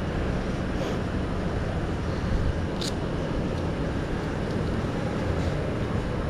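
Aprilia RS660's parallel-twin engine and exhaust running at a steady pace, with a brief click about three seconds in.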